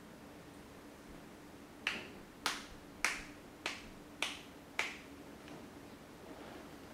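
Six sharp hand slaps during a percussive massage, evenly spaced a little over half a second apart.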